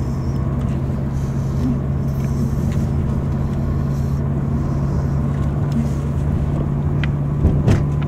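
Steady engine and road noise inside a moving car's cabin, a low even hum, with two brief knocks near the end.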